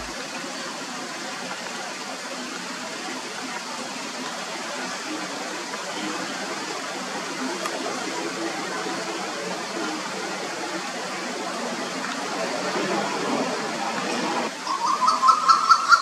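Steady background hiss. Near the end, a male Asian koel starts a fast run of short, loud calls, each a little higher in pitch than the last.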